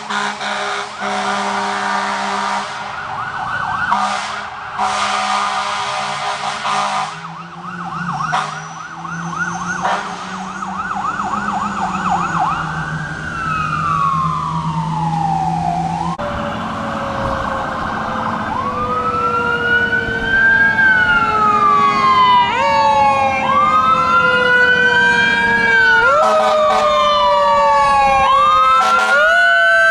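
Fire engine sirens. First a fast yelping siren with long horn blasts over the truck's diesel engine, sliding into one long falling wail. Then a siren wailing up and down about every three and a half seconds, with a lower siren tone sliding down beneath it and short horn blasts.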